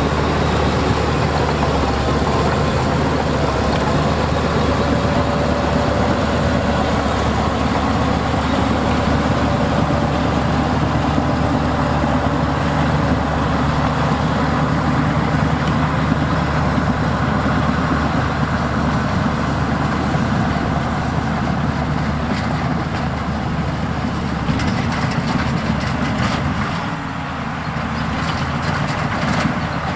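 Heavy diesel engine of earthmoving equipment running steadily under load, with a deep continuous hum, easing off slightly near the end.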